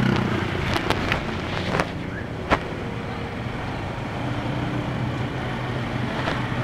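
A motorbike taxi's engine running under way through city traffic, heard from the pillion seat with wind and road noise. A few sharp clicks come in the first three seconds, the loudest about two and a half seconds in.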